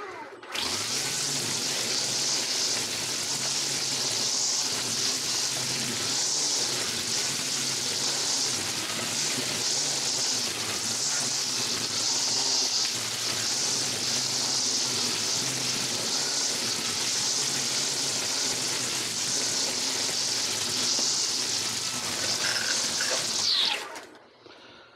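Stihl FSA 135 R battery string trimmer running with its line cutting through tall weeds: a steady hiss over a low motor hum. The motor briefly winds down and restarts at the very start, then spins down with a falling whine about a second before the end.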